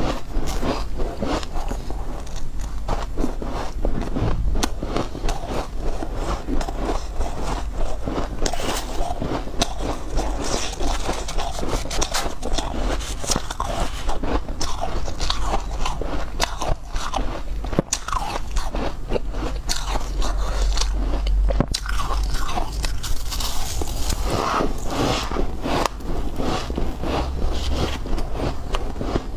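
Mouthfuls of soft white ice crunched and chewed in a steady run of crackly bites, with a metal spoon scraping and scooping more ice from the block now and then.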